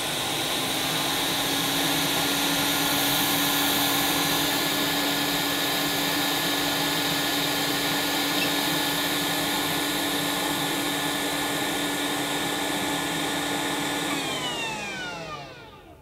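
Atten ST-862D hot air rework station's blower fan running at full airflow: a steady rush of air with a high-pitched whine. About fourteen seconds in the station is switched off and the fan spins down, its pitch falling away. A higher-RPM fan in a small blower housing makes it louder and higher pitched than other stations in its class.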